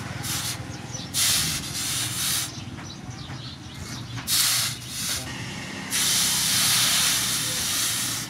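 A hot steel knife blade is dipped again and again into a water trough to quench it. Each plunge gives a burst of steam hissing and sizzling, about five in all, and the last is the longest, over two seconds.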